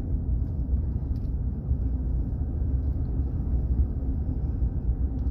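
Steady low rumble of a minivan driving along a road, engine and tyre noise heard from inside the cabin.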